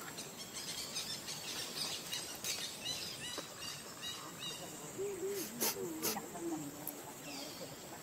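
Outdoor ambience: a steady high insect drone, with a run of short bird-like chirps in the middle. About five seconds in, a brief wavering voice-like call is heard, along with a sharp click or two.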